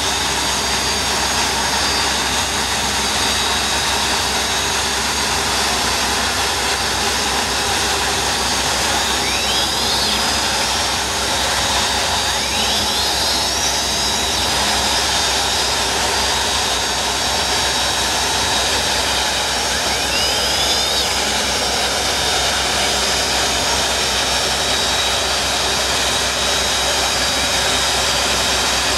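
Turbine engines of a Mystic powerboat running at low power with a steady jet-like whine and rush. Three brief rising whines come through it, about ten, thirteen and twenty-one seconds in.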